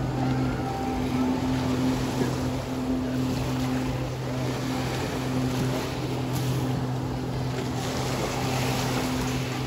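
Steady low hum of a boat engine running on the water, over the noise of wind and the sea.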